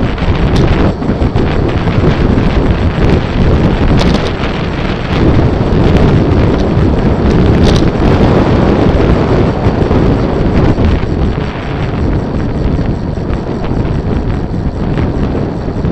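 Wind buffeting the microphone of a camera mounted on a moving road bicycle: a loud, steady rush of wind noise, with a few brief clicks.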